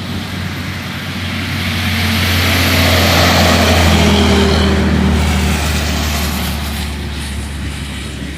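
Rolling thunder: one long low rumble that swells to a peak about halfway through and slowly dies away.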